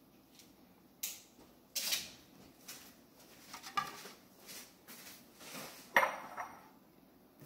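Dishes and utensils being handled on a kitchen counter: a string of separate clinks and knocks about a second apart, the loudest one about six seconds in, followed by a brief ring.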